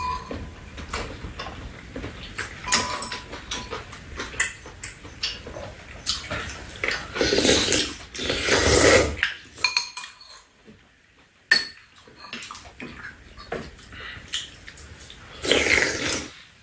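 Metal spoons and chopsticks clinking against bowls, with slurping and chewing as two people eat fish cake hot pot broth. Louder slurps come twice, around the middle and near the end.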